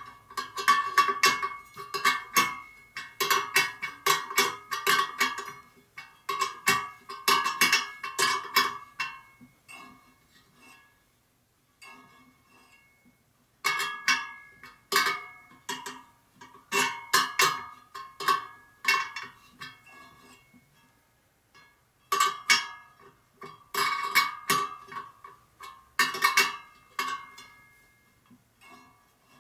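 Steel spokes of a laced motorcycle wheel pinging in quick runs as they are struck with a metal spoke wrench, each strike ringing with a metallic tone whose pitch shows how tight the spoke is. The runs come in bursts of a few seconds with short pauses between them.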